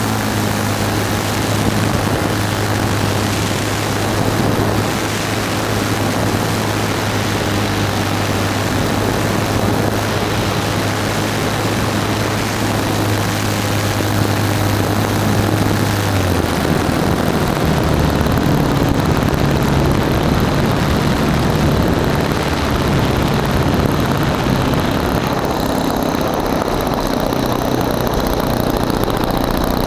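Single-cylinder nitro glow engine of a large radio-controlled model airplane running with its propeller turning, heard up close from an onboard camera mounted next to the engine. It holds a steady drone for about the first half, then the pitch drops lower and wavers as the throttle comes back.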